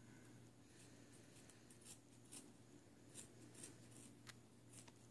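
Scissors cutting through a folded ribbed cotton newborn hat: a series of faint, sharp snips, more frequent after about two seconds.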